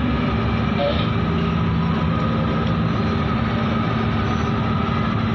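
Heavy marine diesel engines of a harbour tug running steadily under load as it pushes a large ship, a constant low drone with several held tones.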